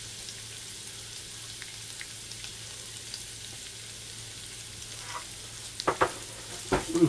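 Butter and crushed garlic sizzling gently in a small saucepan over a low heat, a steady soft hiss with scattered faint crackles. A few sharper clicks near the end.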